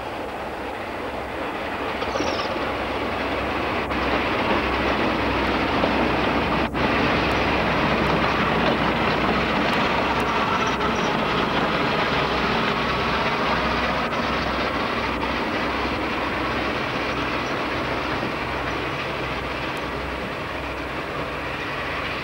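BR Class 52 'Western' diesel-hydraulic locomotive D1013 running past close with its train of coaches. Its twin Maybach diesel engines run under the clatter of wheels over the track. The sound is loud and steady, building over the first few seconds.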